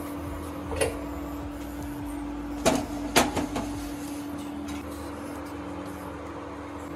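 Kitchen handling at a gas stove with an iron tawa: a light click about a second in, then a cluster of sharp knocks and clicks around three seconds in, over a steady low hum.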